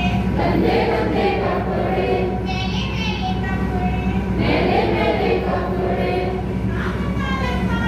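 A group of adults singing together in unison, slow held notes, with a steady low hum underneath.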